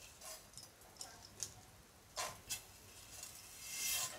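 Whole spices (cinnamon, cardamom and seeds) being stirred with a spatula as they roast in a pan: scattered light clicks and taps, then a longer scrape near the end.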